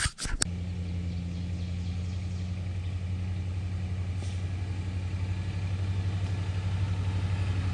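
A vehicle engine running at a steady low idle, a constant hum that grows slowly louder.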